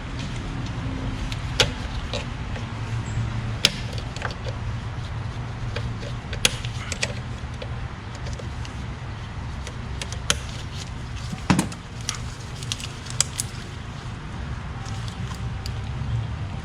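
Scattered sharp clicks and metal clinks of pliers and hand tools working in a car's engine bay, over a steady low hum.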